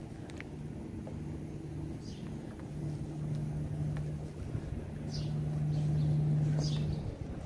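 A steady low mechanical hum that grows louder from about three seconds in and cuts off suddenly near the end. A few faint, short high chirps sound over it.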